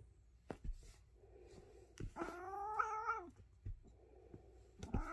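Tabby cat giving a drawn-out meow about two seconds in and starting another near the end while it swats and nips at a hand in rough play. A few sharp knocks come in between.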